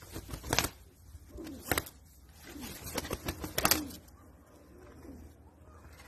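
Turkish tumbler pigeon tumbling on concrete, its wings flapping and beating against the ground in three sharp bursts.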